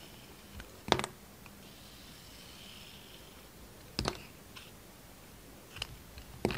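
Snap-off utility knife blade cutting into a bar of Dalan soap. There are four crisp cracks: about a second in, at four seconds, and two close together near the end, with faint scraping between them.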